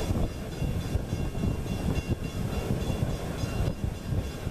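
Norfolk & Western 4-8-0 steam locomotive No. 475 running, heard as a steady low rumble made of quick, uneven beats.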